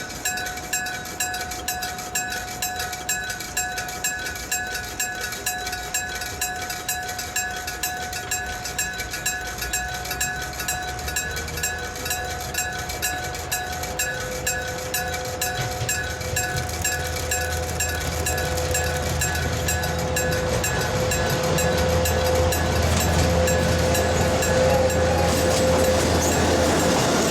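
Level-crossing warning bell dinging steadily, about two to three strikes a second, as an ND60 diesel locomotive approaches. The locomotive's low engine rumble grows louder from about halfway, with a steady hum joining in, until it covers the bell near the end.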